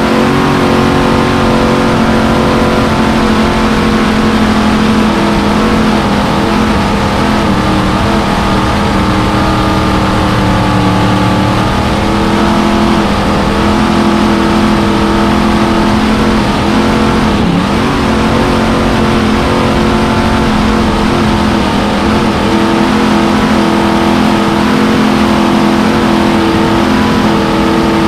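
Supercharged, fuel-injected 427 Chevy big-block V8 in a circle-racing V-drive boat, running hard at a steady speed over a rush of water and wind. The engine's pitch dips briefly and comes back up about two-thirds of the way through.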